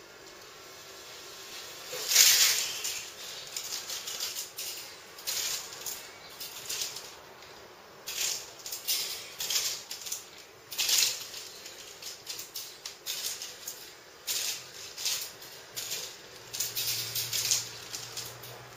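Steel springs of a chest expander rattling as it is stretched and released, in repeated short rasping bursts about once a second, the loudest about two seconds in.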